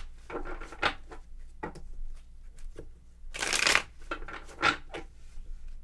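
Tarot cards being shuffled by hand: a series of short papery rasps, the longest and loudest about three and a half seconds in.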